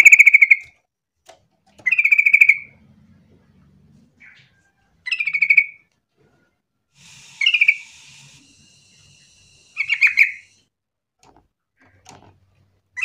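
Caged yellow-vented bulbul (trucukan) giving its bubbly, chattering call in short bursts of under a second, about every two to three seconds.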